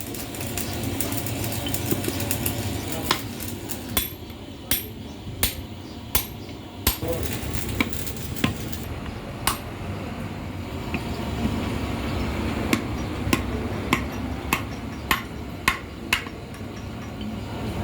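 Hand hammer striking metal, a dozen or more sharp blows at an uneven pace with short pauses between groups, over a steady low rumble.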